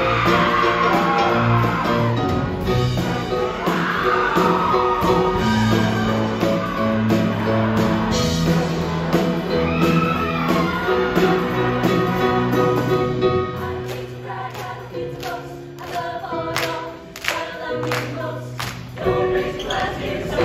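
Show choir singing an upbeat number with a live band. Toward the end the music thins to a few sharp accented hits before building back up.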